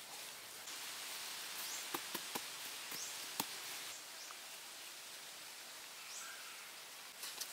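Outdoor forest ambience: a steady high hiss typical of insects, with a handful of sharp taps and clicks about two to three and a half seconds in.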